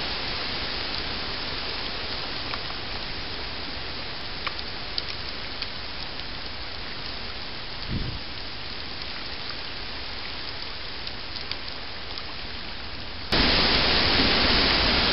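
Heavy rain falling on a creek and surrounding bush: a steady hiss with scattered sharp drop ticks and one short low thump about eight seconds in. The rain suddenly becomes much louder near the end.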